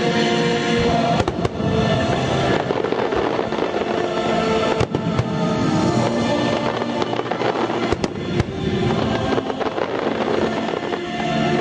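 Fireworks bursting in a rapid series of sharp bangs over loud music with held tones.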